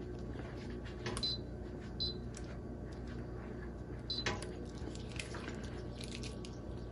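Three short high beeps from a Sous Vide Art immersion circulator's control panel as its buttons are pressed to set the temperature, with light clicks from the button presses.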